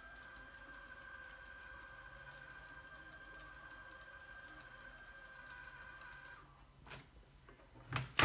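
Small thermal label printer printing a sticker label: a steady high whine with fast, fine ticking that stops about six seconds in. A couple of sharp clicks follow near the end.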